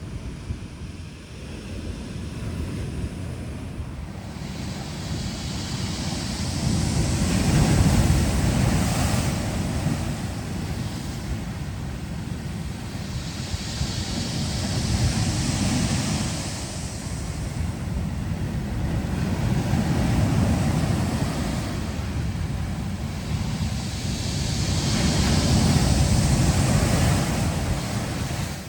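Sea waves breaking and washing on a shore, swelling and ebbing in about four slow surges, with low wind rumble on the microphone.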